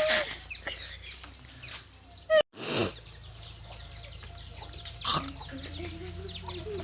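Small birds chirping in quick repeated short falling notes, several a second. A short loud sound comes just before a sudden cut about two and a half seconds in.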